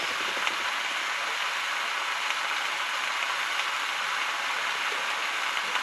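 Steady hissing sizzle from a pan cooking on a portable gas burner, with a few faint ticks.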